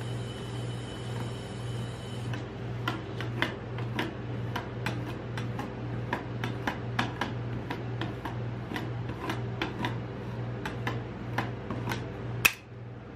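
Metal spatulas tapping and clicking against a steel ice-roll cold plate while smoothing a thin sheet of ice cream, two or three sharp ticks a second with one louder click near the end. Under it runs a steady low hum from the cold plate's refrigeration, and a high hiss cuts off about two seconds in.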